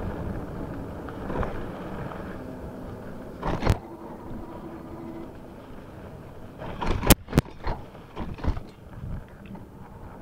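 E-bike rolling along a dirt road: steady tyre and road noise, with sharp knocks as the bike hits bumps, one about four seconds in and a cluster of them around seven to nine seconds.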